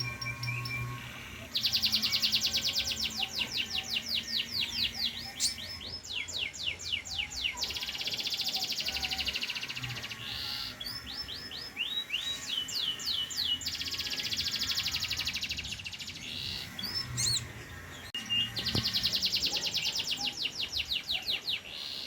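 Pied ('panda') domestic canary singing: long, fast trilled rolls of rapidly repeated notes in phrases several seconds long, with brief pauses and short whistled notes between phrases.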